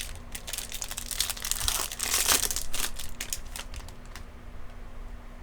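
Foil wrapper of a trading-card pack crinkling and crackling as it is torn open and handled, busiest about two seconds in, then dying away.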